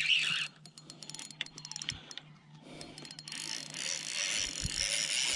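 Spinning reel being worked against a hooked fish on a hard-bent rod. There is a run of rapid clicks in the first half, and a steady hissing whir takes over in the second half, over a faint steady hum.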